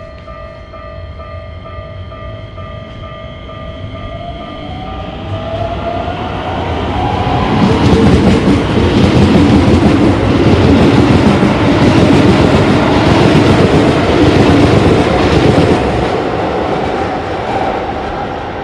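A railroad crossing's warning bell rings as a steady tone. A train then approaches and passes: a tone slides upward, and a loud rumble and wheel clatter builds about five seconds in, stays loud for several seconds and eases off near the end.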